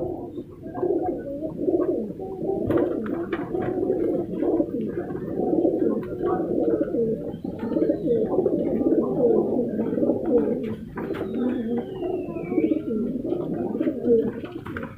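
Many domestic pigeons cooing at once in a loft: a dense, steady chorus of low, overlapping coos, with a few light clicks scattered through it.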